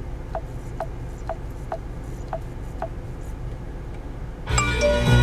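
Ford Sync touchscreen giving a short falling blip with each tap of the previous-track button, about two a second for the first three seconds, over a steady low hum. About four and a half seconds in, music from a CD starts loudly over the car's Sony audio system.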